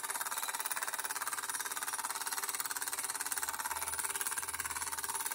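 Bowman E135 toy live steam engine running steadily, its cylinder giving rapid, even exhaust beats.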